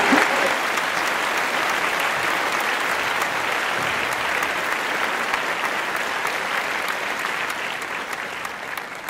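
Audience clapping in a large hall after a dance performance, a dense steady applause that fades out over the last second or so.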